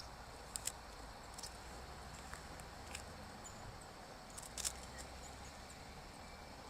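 Faint steady outdoor background hiss and low hum, with a few short clicks or ticks, the clearest near the start and about four and a half seconds in.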